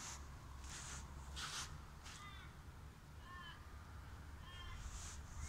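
A crow cawing several times, short calls about a second apart, starting about two seconds in, over a faint low background rumble.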